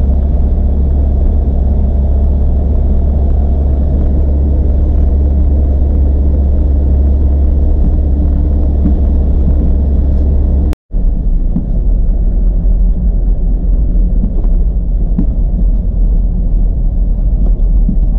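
Steady low rumble of a road vehicle on the move, engine and road noise together. It cuts out for an instant about eleven seconds in, then goes on with a slightly different rumble.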